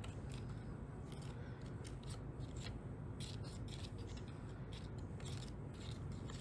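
A small plastic spoon stirring in a plastic candy-kit tray, giving faint, irregular clicks and scrapes as powdered omelette candy mix is stirred into water.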